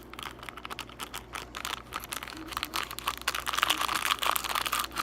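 Crinkling and rustling of a slime-powder packet being handled and emptied. The crackling grows louder and busier about three seconds in.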